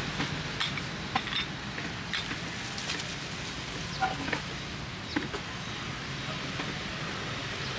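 Street background: a steady low hum of traffic with scattered light clicks and clinks.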